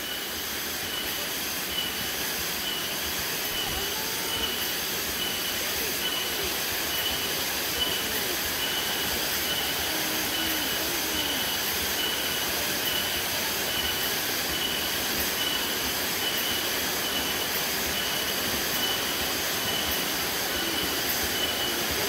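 Steady rush of a rocky jungle stream and its small waterfalls, with a high insect chirp repeating about once a second above it.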